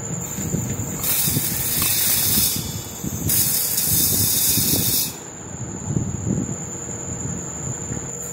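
Dry raw rice grains pouring from a measuring tumbler into a stainless steel bowl: a hissing patter of grains in two pours of about two seconds each, one about a second in and the next just after three seconds.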